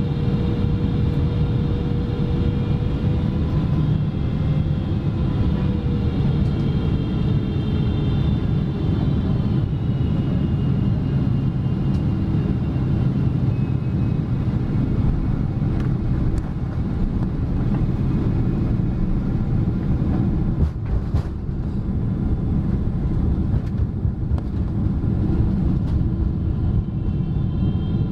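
Boeing 777 engines and rushing air heard from inside the cabin while landing and rolling down the runway: a steady, heavy rumble with a thin engine whine. The whine drops in pitch about five to nine seconds in, and a few knocks come about twenty seconds in.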